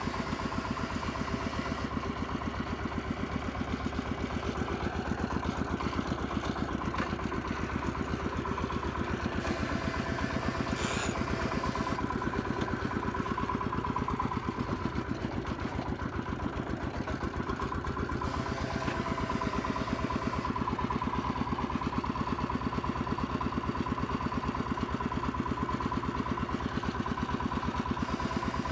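Công nông farm vehicle's engine running steadily: a fast, even chugging with a steady whine over it.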